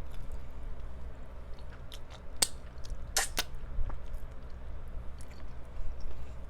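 Close-up chewing of crispy fried chicken coated in nacho cheese, with a few sharp crunching smacks about two and a half and three seconds in, over a steady low hum from a fan.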